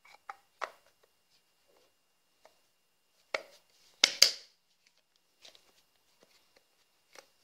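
Plastic gyroscope flywheel of an RC dirt bike handled and fitted together by hand: scattered light clicks and knocks, with three sharper knocks a little past three seconds in, the last two loudest.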